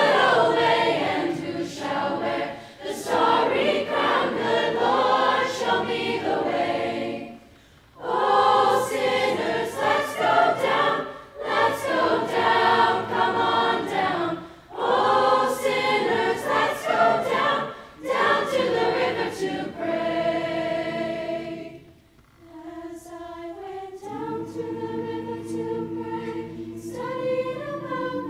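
Mixed-voice choir singing in full, loud phrases with short breaks between them; about two-thirds of the way through the singing drops to soft, sustained chords.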